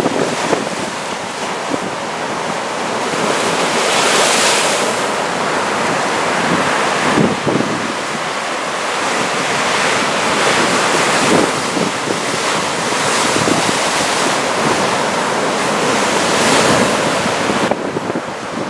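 Heavy typhoon swell breaking on the shore, the sound of the surf swelling every few seconds, with wind buffeting the microphone.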